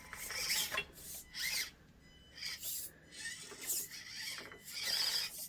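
Irregular scraping and rubbing as an Axial Deadbolt RC crawler works its tires and chassis over the course's obstacles.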